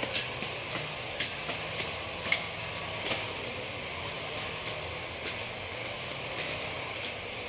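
Irregular sharp snaps and crackles in undergrowth, the sound of dry leaves and plant stems being pulled and cut by hand during weeding, over a steady background hiss.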